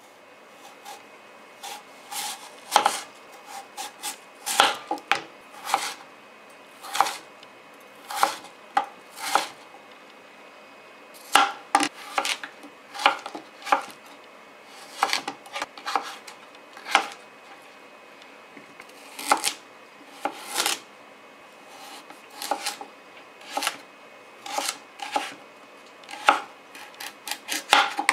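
Chef's knife slicing cucumber and carrot into sticks on a plastic cutting board: sharp knocks of the blade striking the board, irregular, roughly one or two a second with short pauses, starting about two seconds in.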